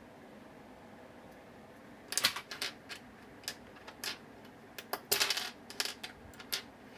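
Small plastic LEGO minifigure parts clicking and clattering as they are picked through by hand. The first two seconds are quiet, then come scattered sharp clicks, busiest around five seconds in.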